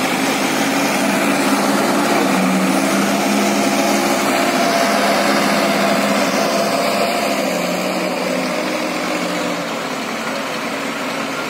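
Sonalika 60 RX tractor's diesel engine running steadily under load, pulling a fully loaded trolley. It grows fainter near the end as the tractor moves away.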